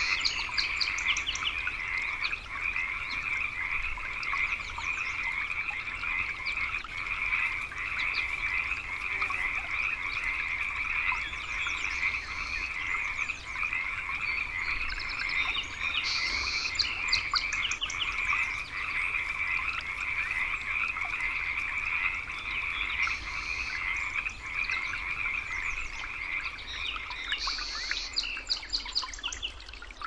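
A dense chorus of frogs croaking continuously in rapid pulses, with short higher-pitched calls standing out a few times.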